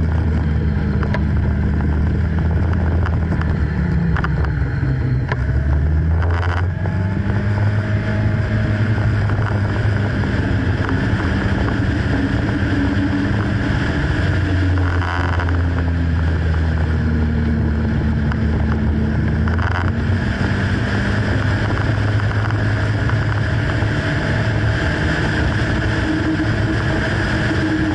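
Motorcycle engine running while riding through bends, heard from on the bike, its pitch dropping about four seconds in and climbing again a couple of seconds later, with wind rushing over the microphone.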